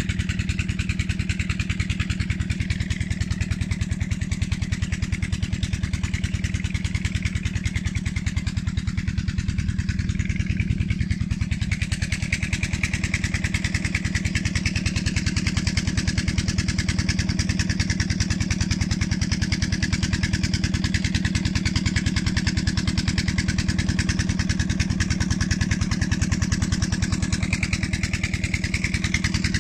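An engine running steadily with an even, rapid pulse, under a steady hiss.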